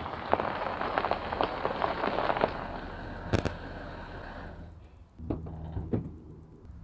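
SUV tyres crunching and popping over gravel as it rolls slowly forward, with one sharp stone pop partway through. The crunching stops about four and a half seconds in, leaving the engine idling low, with two knocks near the end.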